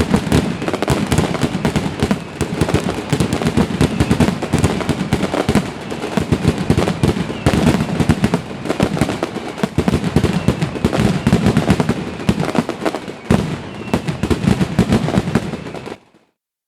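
Fireworks display in a dense barrage: many bangs and crackles every second with no pause, the sound cutting off abruptly near the end.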